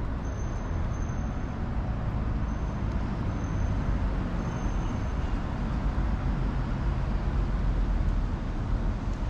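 Steady road traffic noise, a continuous low-pitched din with no single event standing out.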